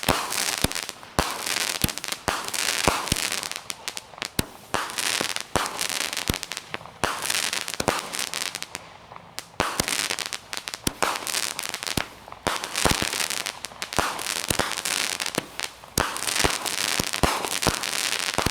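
A small consumer firework cake, Suspended Animation, billed as 25 shots, firing a long rapid string of sharp reports with crackling and hissing between them.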